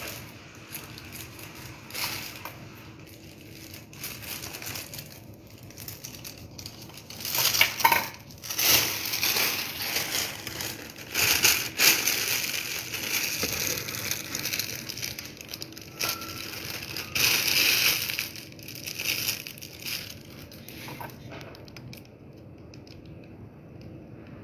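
Plastic piping bag crinkling and rustling in irregular bursts as it is handled, loudest about a third of the way in and again near two-thirds through.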